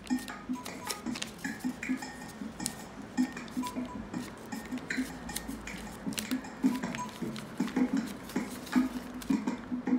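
Paper coffee bag crinkling and crackling in short bursts as it is folded by hand around a bar of soap, over background music with repeating plucked notes.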